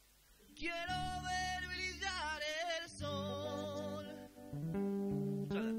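Live rock band music. After a brief gap, a singer holds long wavering notes over electric guitar and steady bass notes.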